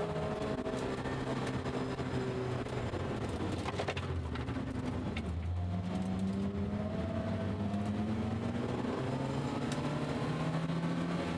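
A BMW race car's engine heard from inside the cabin, running hard under load. Its note climbs slowly, drops to a lower pitch about four seconds in, then climbs again over steady road and wind noise.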